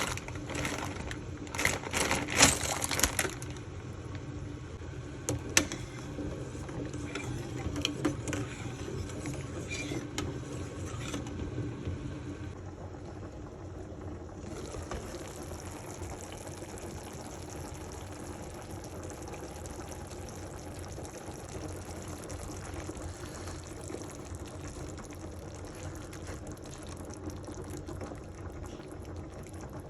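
Liquid bubbling steadily in a pot on the stove, with a few sharp utensil clicks and clatters in the first few seconds.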